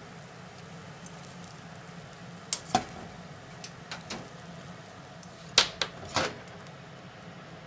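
A 24 cm deep frying pan and a plastic spatula knocking and clattering as an omelette is turned: several sharp knocks in small clusters, the loudest about three-quarters of the way through. Underneath runs a steady faint hiss of the egg frying over the gas flame.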